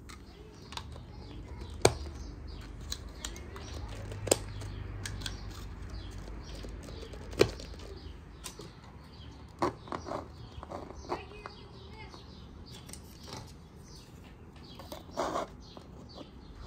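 Clear plastic cups and dome lids being handled on a table: sharp clicks and knocks as cups are set down and lids are pressed on, with three louder knocks spread through the first half and a quick cluster of clicks a little past the middle.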